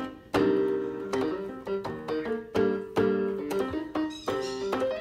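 Background piano music: struck chords and single notes with a steady pulse.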